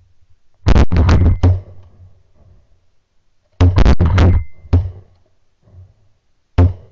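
Shotgun volleys from several hunters firing at ducks in flight. Two quick bursts of four or five overlapping shots, about a second in and about halfway through, and another shot near the end.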